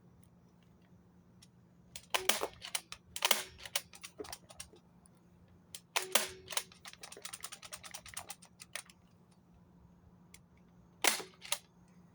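A toy gel-bead blaster pistol firing: four sharp snaps, about two seconds in, a second later, around six seconds and near the end. Some of the snaps have a short ring after them, and lighter clicks of handling and loading the gun come between the shots.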